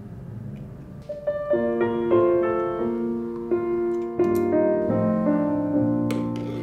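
Background piano music, quiet at first, then a gentle melody of sustained notes that comes in louder about a second in.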